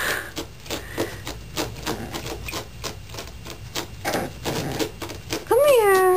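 Boston Terrier puppy scratching and clawing at the carpeted edge of the top stair, a quick run of soft scratches. Near the end it gives one drawn-out high whine that rises and then falls.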